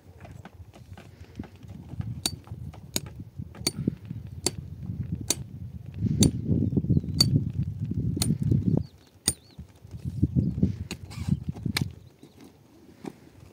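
Hand digging tool (mattock) chopping into stony soil: a sharp clink roughly once a second, with rough scraping of dirt as soil is pulled loose, loudest in the middle.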